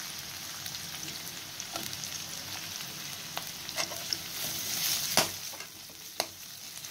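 Onions sizzling in hot oil in a kadhai, with a slotted metal spatula stirring them and knocking against the pan several times in the second half, the loudest knock about five seconds in.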